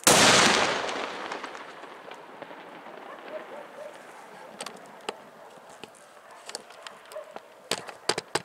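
A large firecracker goes off with a sudden loud bang that echoes and dies away over about two seconds, followed by a few scattered small pops. Near the end a rapid string of sharp firecracker cracks begins, several a second.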